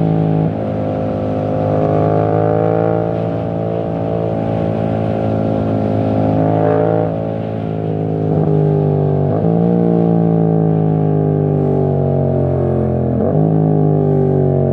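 Yamaha MT-07's parallel-twin engine through a full titanium exhaust with no dB killer, pulling under acceleration with its pitch slowly climbing. The pitch drops suddenly at about seven, nine and thirteen seconds in as the bike shifts up.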